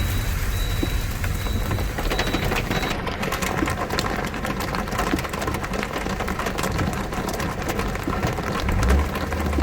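Heavy monsoon rain pouring, a dense patter of drops that thickens about three seconds in, over a steady low rumble. A faint thin high whine runs through the first few seconds.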